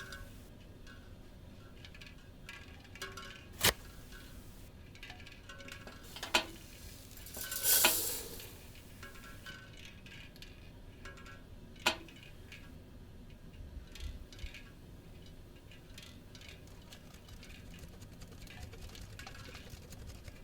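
Foley sound effects: sharp clicks or knocks about four, six and twelve seconds in, and a short hissing burst of about a second near the eight-second mark, over faint background music.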